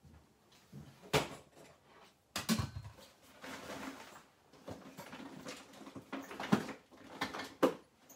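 Someone rummaging for something: several sharp knocks and clatters, with rustling in between.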